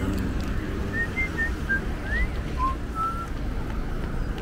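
A loose string of short whistled notes at changing pitches, one of them a quick upward slide, over a steady low rumble of wind and road noise from the moving bike.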